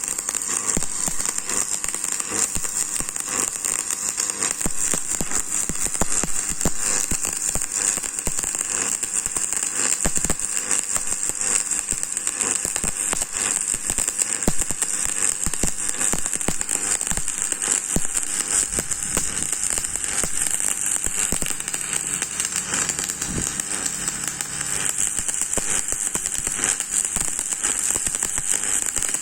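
Electric arc welding: a continuous frying crackle and hiss from the arc as a bead is laid, running steadily without a break.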